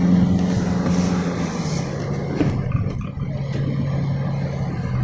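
Car engine running with road noise, a steady low hum that drops in pitch about two seconds in.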